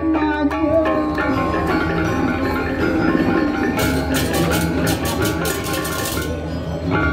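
Balinese gamelan playing: bronze metallophones in a fast, interlocking pattern over low gong tones, with a run of cymbal clashes from about four to six seconds in.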